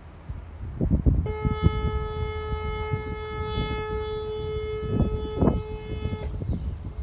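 A boat's horn sounding one long, steady, unwavering blast of about five seconds, over a low rumble with a few gusts.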